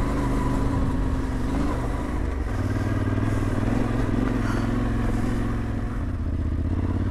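Yamaha Ténéré 700's parallel-twin engine running as the bike is ridden along, its note shifting about two and a half seconds in.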